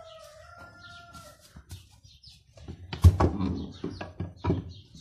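A rooster's drawn-out crow trails off in the first second and a half. About three seconds in, a wooden tortilla press shuts with a loud knock and clatters. A second knock follows about a second and a half later.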